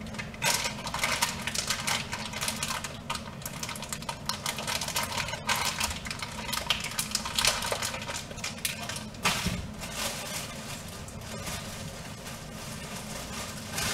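Crinkling and crackling of food packaging being handled, a dense run of sharp crackles that thins out in the last few seconds, over a low steady hum.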